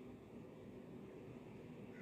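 Near silence: a faint, steady room hum.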